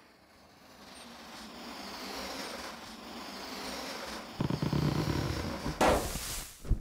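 Logo-intro sound effect: a whooshing noise swells up over a few seconds, a low rumble joins about four and a half seconds in, and a bright burst hits about six seconds in, with a short low thump at the very end.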